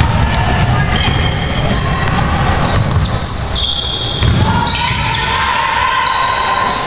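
A basketball being dribbled, with players' footsteps on the hardwood floor of a large, echoing gym during live play.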